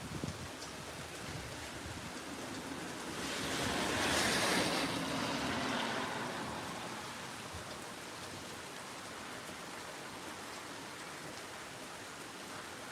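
Steady rain hiss from a rainstorm. About three seconds in, a louder rush of hiss swells, peaks and fades away over the next few seconds.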